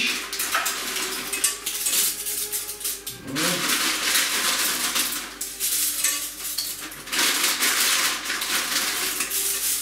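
Dry pasta rattling out of a plastic bag as it is shaken and poured into a frying pan, with the loudest stretches about two seconds in and again from about seven seconds on.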